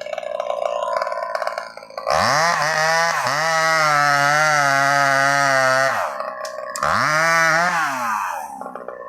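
Two-stroke chainsaw revving up to full throttle about two seconds in, holding high with a wavering pitch for about four seconds, then dropping back, followed by a second, shorter rev near the end.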